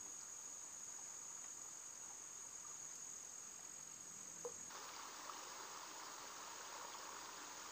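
Faint, steady high-pitched chorus of insects. About two-thirds of the way in, a soft rush of water spilling over a low concrete weir joins it.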